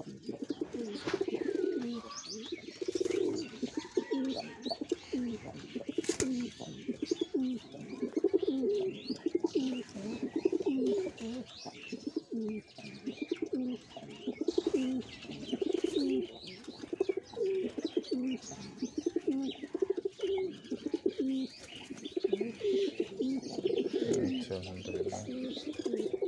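Giribaz domestic pigeons cooing over and over in their loft, one low rolling coo following another with hardly a pause.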